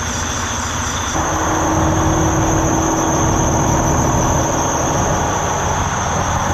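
Freightliner Cascadia semi truck's diesel engine idling steadily, heard up close at the front grille, with a steady high whine over the rumble. The idle gets a little louder about a second in, when a second steady hum joins.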